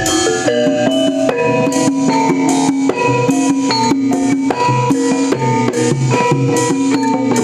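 Javanese gamelan ensemble playing an opening gending: a melody of struck metal-keyed notes changing every fraction of a second over sustained lower tones, with hand-drum strokes running through it.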